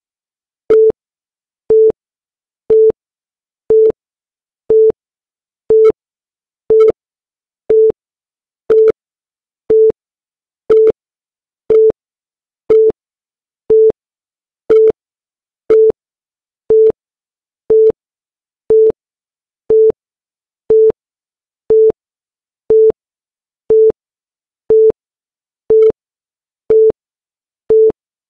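Short electronic beep repeating exactly once a second, each one the same pitch and length, counting off the seconds of a chronometer.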